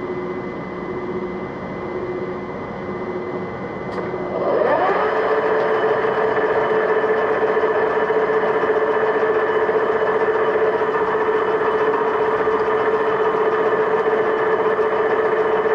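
Metal lathe running with a steady hum. About four seconds in there is a click, then a motor winds up in pitch and settles into a louder, steady whine that holds to near the end.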